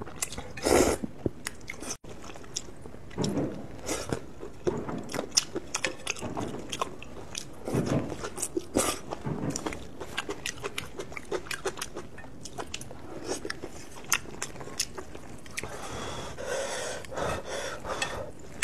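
Close-miked eating of hot and sour glass noodles in soup: noodles slurped off chopsticks and chewed, with many small wet mouth clicks and smacks. Louder slurps come about a second in, around eight seconds and near the end.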